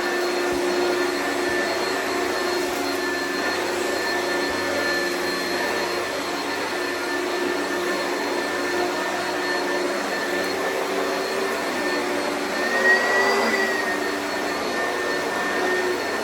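Oreck vacuum cleaner running steadily, its motor pitch and loudness rising briefly about thirteen seconds in.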